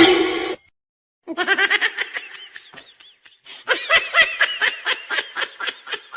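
High-pitched laughter in quick repeated bursts, in two long runs with a short break between. A brief loud call comes right at the start.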